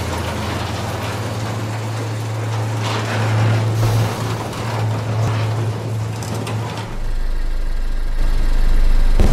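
Street sweeper truck engine running steadily, with mechanical rattling over it. About seven seconds in, the engine note drops to a deeper steady hum.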